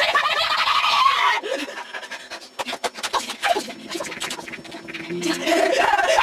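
A cartoon wolf's voice shouting and panting in a frenzy, then holding a low drawn-out vocal note, then bursting into manic laughter near the end.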